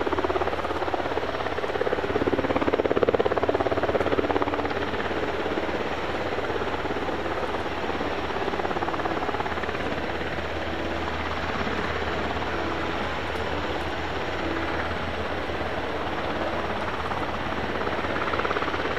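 UH-60J rescue helicopter flying with its rotor beating steadily, a little louder about three seconds in.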